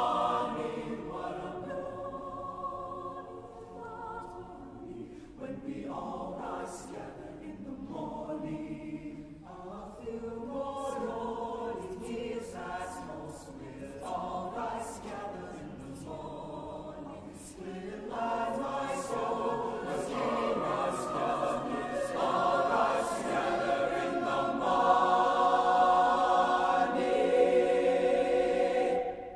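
Mixed high school chamber choir singing, growing louder in the second half and loudest near the end.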